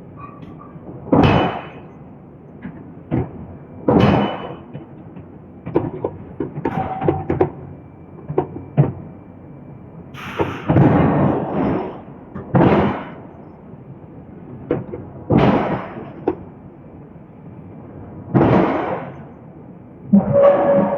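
Forging hammer striking steel billets: heavy single blows a few seconds apart, with bursts of lighter knocks and clanks between them.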